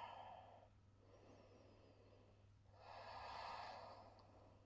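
A woman's quiet, slow breaths close to the microphone as she holds a stretch: one breath fading out in the first second, then a second, longer breath from about three seconds in to just past four.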